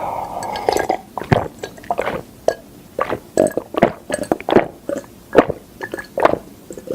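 Close-miked mouth sounds of a person drinking: a series of swallowing gulps, about two to three a second.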